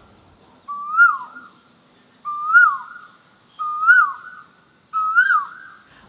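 Male Asian koel calling its "ko-el" ("uwu") call: four whistled notes about a second and a half apart, each sliding up and then dropping.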